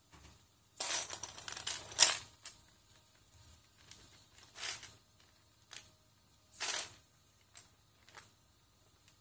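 Loose plastic Lego bricks clattering and shifting under the feet of a servo-driven four-legged robot. A dense burst of rattling comes about a second in, then shorter clatters and single clicks every second or two.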